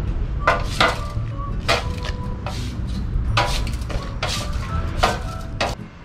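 A long-handled tool scraping and striking wet asphalt in short, irregular strokes, about eight in six seconds, over a low rumble.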